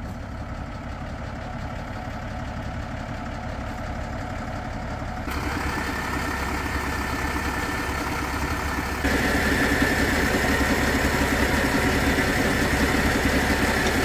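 Mercedes-Benz Unimog truck's diesel engine running steadily under load while the truck tries to climb a steep, muddy slope. The sound gets louder in two sudden steps, about five and nine seconds in.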